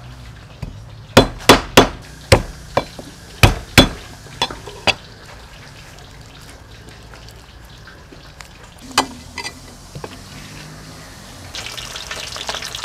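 A cleaver striking a wooden chopping block, a run of sharp knocks in the first five seconds and a few more around nine seconds. Near the end, oil begins sizzling as fish deep-fries in a wok.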